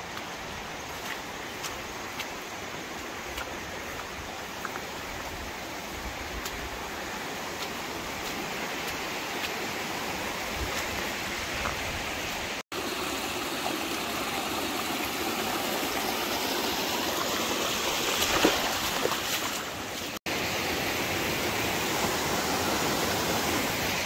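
Steady rush of a shallow river flowing over rocks.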